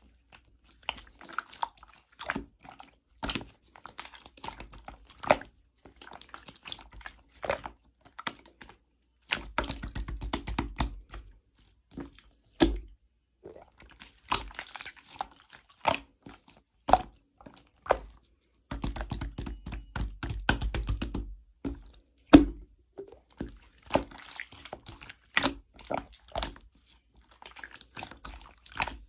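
Irregular crackles, crunches and small knocks from something being handled, with two longer rustling stretches, about ten and twenty seconds in.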